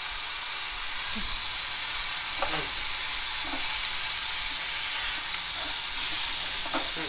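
Onions, green chillies and dal frying in oil in a kadai with a steady sizzle, as boiled potatoes and salt go into the pan. In the second half a spatula stirs the mixture.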